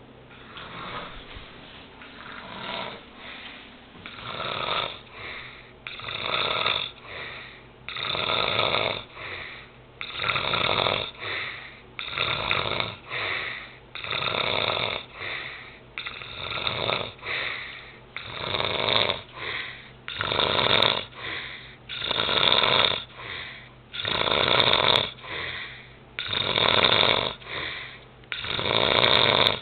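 Snoring, rhythmic: about one breath every two seconds, each a longer rasp followed by a shorter one, growing louder toward the end.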